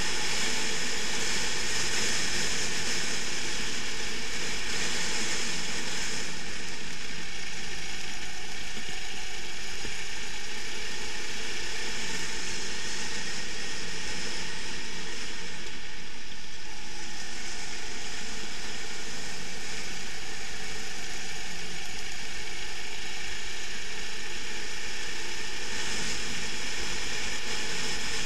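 Racing kart running at speed, its engine and drive heard as a steady, noisy sound from a camera mounted on the kart.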